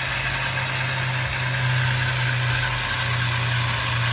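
Electric water pump motor running with a steady hum and hiss, pressurising the newly repaired PVC water line.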